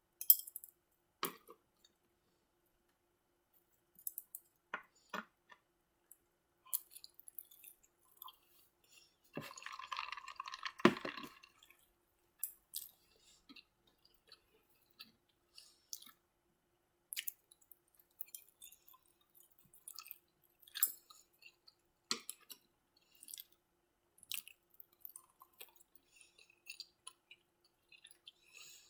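Close-miked mouth sounds of a person chewing shrimp lo mein and orange chicken: scattered wet clicks and smacks, with a denser noisy stretch of about two seconds around ten seconds in.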